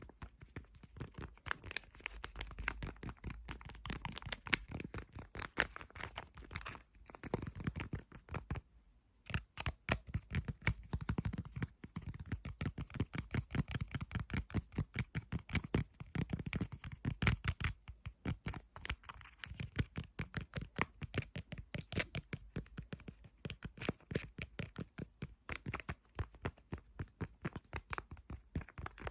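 Fingernails tapping and scratching rapidly on a hard object, many quick clicks a second, with a short pause about nine seconds in.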